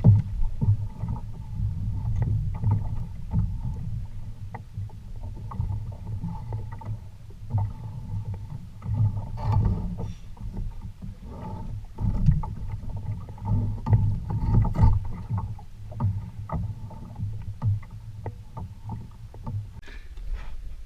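Water sloshing and lapping against a kayak hull, a rumble that swells and fades, with scattered knocks and clicks.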